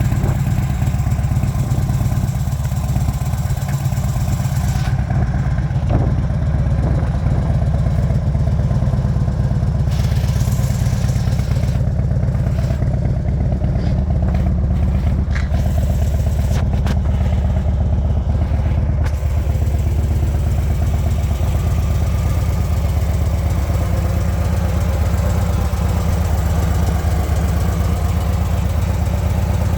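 Harley-Davidson FXDF Fat Bob's air-cooled V-twin engine running steadily without revving, on its first run after a rebuild.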